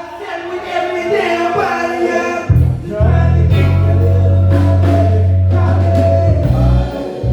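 Live band music with singing: drums, electric bass holding a long low note through the middle, and a melody over keys.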